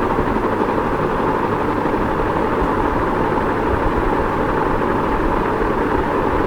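Ceiling fan running steadily: an even whir of moving air with a low rumble beneath it, not changing in speed.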